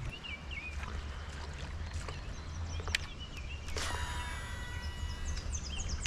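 Shimano SLX DC baitcasting reel whining on a cast about four seconds in, the pitch sinking as the spool slows. A sharp click comes just before it, and birds chirp over a steady low rumble.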